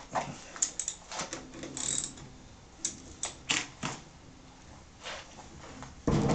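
Small steel parts of a lathe's cross slide screw assembly clicking and clinking as they are handled and a hand tool is fitted onto the end of the screw: a string of sharp, separate clicks. A louder, longer noise starts near the end.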